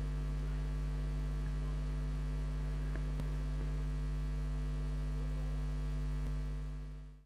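Steady electrical mains hum: a low hum with a ladder of overtones above it. It fades out in the last second and then cuts to silence.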